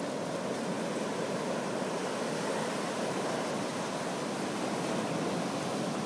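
Ocean surf washing steadily on the beach, an even rushing noise with no distinct breaks.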